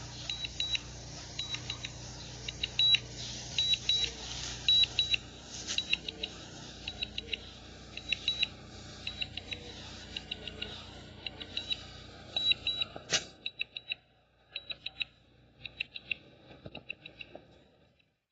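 Electronic warning beeps from a Neo 2 drone's controller, sounding in quick groups of two to four, over and over. A low steady hum runs under them and stops after a click about 13 seconds in.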